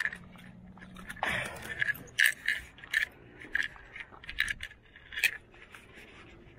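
A run of about ten sharp, irregular clicks and clinks, as of small hard objects knocking together, starting about a second in and stopping about five seconds in.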